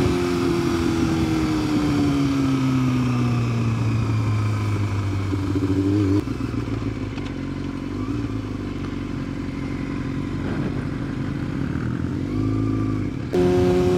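Sport motorcycle engine heard from the rider's seat, its pitch falling steadily as the bike slows over the first few seconds. At about six seconds it drops suddenly to a lower, steady running note. The sound changes abruptly again shortly before the end.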